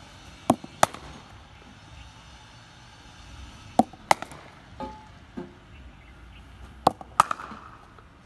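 Cricket bat hitting a ball during batting practice: three pairs of sharp knocks, each pair about a third of a second apart, with a couple of softer knocks between them.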